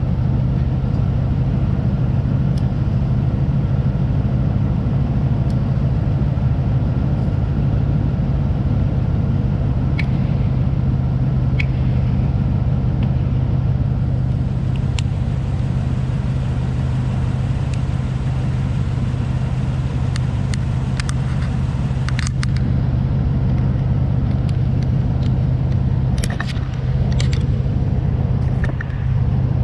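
A 2008 Nissan Titan's 5.6-litre V8 engine running steadily with a low hum. A few sharp clicks come in the last several seconds.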